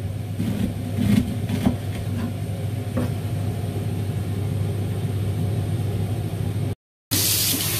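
Kitchen knife slicing fresh ginger root on a bamboo cutting board: about five knocks in the first three seconds, over a steady low hum. Just before the end, after a brief silent break, running tap water hisses.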